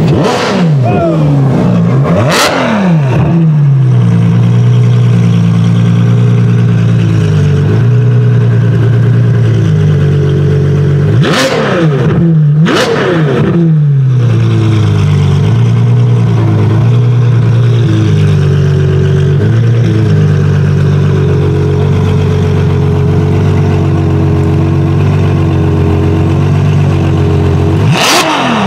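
Ferrari F12berlinetta's 6.3-litre V12 idling steadily and blipped to high revs in sharp bursts, each rising and falling back within about a second: two near the start, two about halfway and one near the end.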